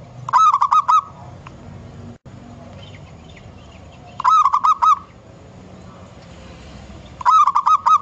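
Zebra dove (perkutut) singing: three phrases, each a quick run of four or five looping cooing notes, about three seconds apart.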